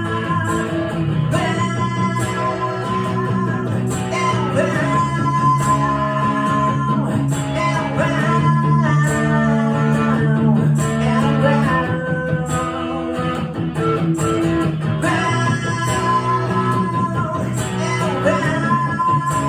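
Live rock song: a singer with guitar, plucked chords ringing steadily and the voice carrying the melody over them.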